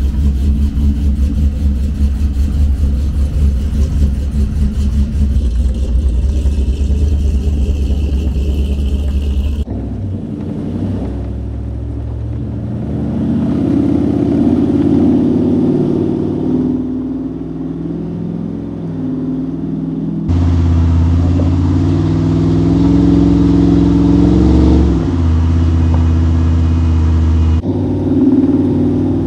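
Cammed 6.0 L LQ9 V8 of a Chevrolet Silverado running, first heard from outside the truck as a steady, heavy low drone, then from inside the cab while driving, its pitch rising and falling with the throttle.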